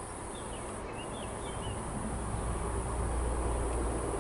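Low diesel engine rumble of an approaching ALn 776 railcar, growing steadily louder from about halfway through. A small bird chirps a few times in the first two seconds over a steady high insect buzz.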